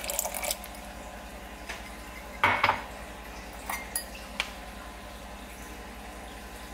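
White vinegar poured from a plastic measuring cup into a stainless steel pot of warm milk to curdle it, with a short splash at the start. About two and a half seconds in come two loud clattering knocks of kitchenware against the pot, then a few light clinks, over a steady low hum.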